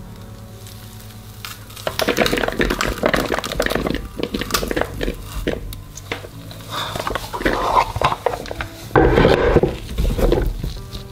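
Boiled potatoes being pressed through a stainless steel potato ricer: soft, crackly squishing as the potato is forced through the perforated basket, with small metal clicks from the ricer, in several bouts of pressing, the loudest near the end.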